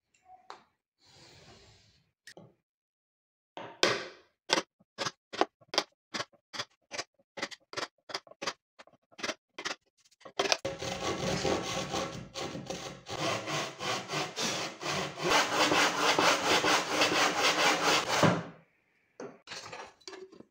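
Hand saw cutting through an MDF board: a run of separate short strokes, then fast continuous back-and-forth sawing for about eight seconds that stops abruptly, with a few last strokes near the end.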